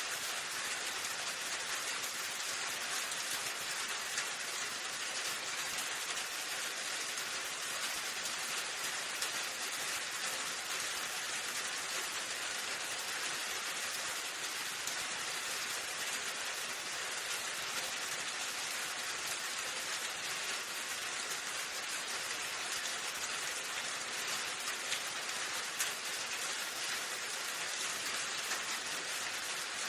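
Steady rain falling, an even hiss of many drops with faint scattered patters on a surface.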